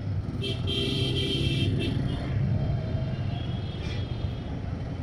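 Motorcycle engine running at low speed in slow, congested city traffic, with a steady low rumble. A vehicle horn sounds for about two seconds about half a second in, and again briefly near the end.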